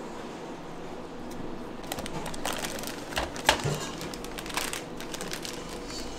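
Light clicks and knocks of small items being handled, with one sharper knock about three and a half seconds in, over steady background noise.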